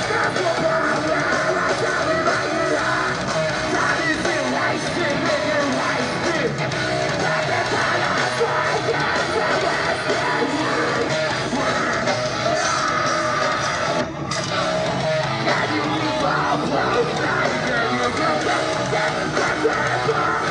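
Live metalcore band playing loud, with distorted electric guitars and drums under harsh screamed vocals. The music breaks off for a moment about two-thirds of the way through, then carries on.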